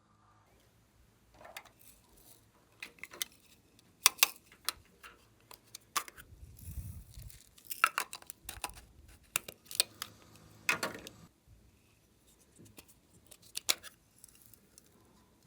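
Glossy slime being pressed, stretched and folded by hand, giving irregular sticky clicks and snapping pops with a brief low rumble near the middle.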